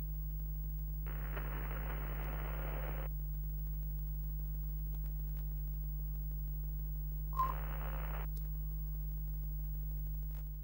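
Retro-TV end-card sound effect: a steady low electrical hum, with two bursts of hiss, about a second in and about seven seconds in, the second opening with a short click. It fades out at the very end.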